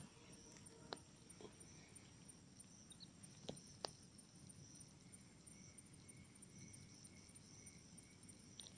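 Near silence with faint, steady insect chirring, high-pitched and finely pulsing, and a few soft clicks.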